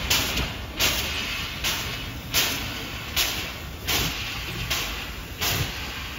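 Two-cylinder MÁV class 424 steam locomotive working slowly under steam: a steady beat of loud exhaust chuffs, each a sharp hiss, a little under a second apart, over a low rumble.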